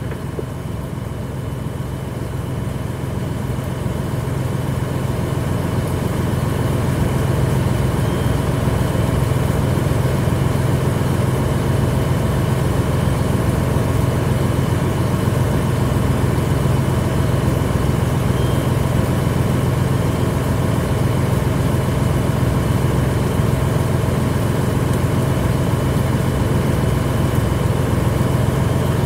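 An engine running steadily. It grows louder over the first six seconds or so, then holds at a constant pitch and level.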